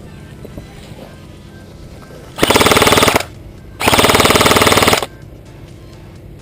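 Airsoft electric gun firing two full-auto bursts: a short one about two and a half seconds in, then a longer one of over a second, each a rapid, even rattle of shots.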